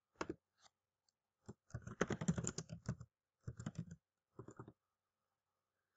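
Computer keyboard typing in short runs of key clicks: a dense run of about a second and a half, then two shorter runs.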